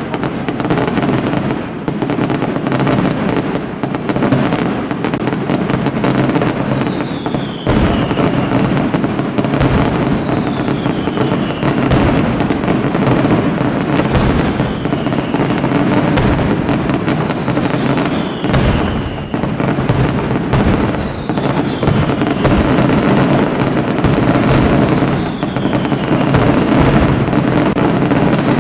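Aerial fireworks display: a dense run of shell bursts and bangs, with a falling whistle every couple of seconds.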